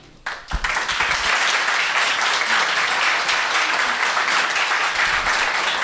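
Audience applauding, starting a moment in and quickly building to steady clapping.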